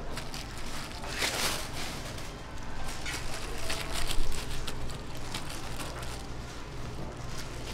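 Plastic-gloved hands rustling and tapping as they lay spinach and pickled radish onto rice on sheets of seaweed, with a louder crinkling rustle about a second in and scattered small clicks, over a steady low background hum.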